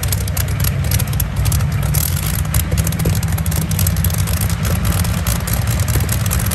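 Rolls-Royce Griffon V12 aircraft engine of a modified pulling tractor idling, a steady deep rumble.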